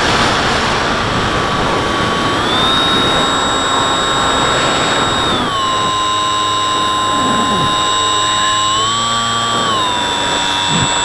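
Electric motor and propeller of a Bixler 3 model plane whining in flight, heard from the onboard camera with a loud rush of wind over the microphone. The whine steps up and down in pitch a few times as the throttle changes.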